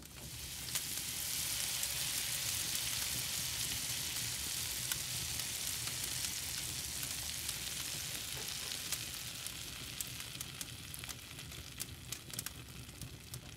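Steak sizzling on a grill grate over a wood fire: a steady hiss that swells in the first second and slowly fades, with scattered pops and crackles in the second half.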